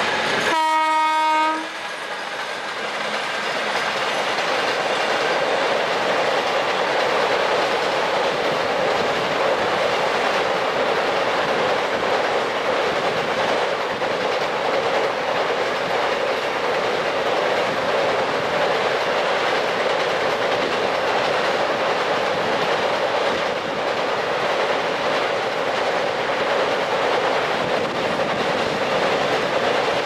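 An Indian Railways WAG-7 electric locomotive's horn sounds one steady note for about a second near the start. Then the loaded container wagons of its freight train roll past on the rails with a steady noise and clickety-clack of the wheels.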